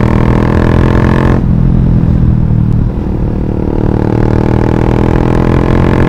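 Yamaha FZ's single-cylinder engine running loud through an aftermarket Akrapovič-copy exhaust while the bike is ridden and gathering speed. The note drops back abruptly about a second and a half in and dips again near three seconds, then pulls on steadily.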